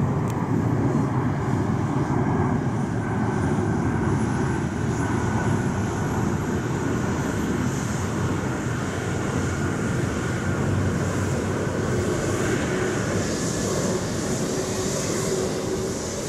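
Bell 429 helicopter running on the ground during start-up, its twin turboshaft engines and turning main rotor making a steady noise with a low rotor chop. A faint, very high turbine whine rises slowly in pitch over the first few seconds.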